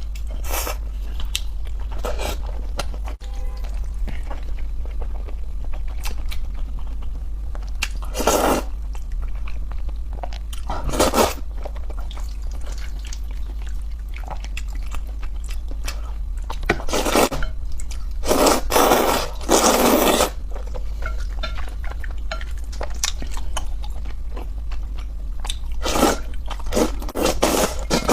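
Close-miked chewing and biting of spicy noodles, with louder bursts of eating noise every few seconds over a steady low hum.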